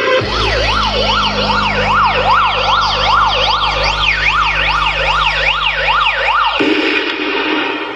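Aftermarket car sound system with Triton midrange speakers playing a siren-effect track at high volume. A fast electronic up-and-down siren, about two and a half sweeps a second, runs over a steady deep bass tone, and both cut off abruptly about a second before the end.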